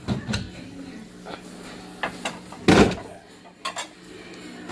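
Kitchenware being handled: a run of separate knocks and clinks of dishes and utensils, the loudest about three seconds in.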